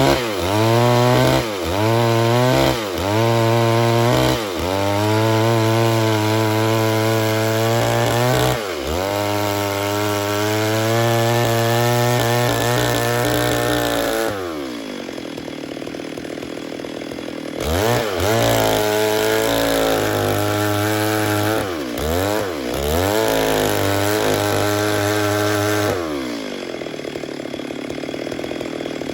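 Stihl MS 382 two-stroke chainsaw revved in quick blips, then held at high revs for several seconds. It drops back to idle about halfway through, revs up again, and falls back to idle near the end.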